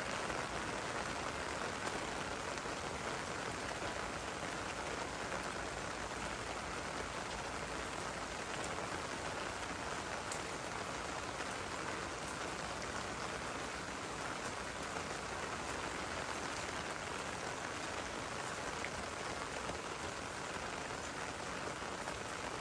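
Steady rain falling: an even hiss with a few faint ticks of single drops.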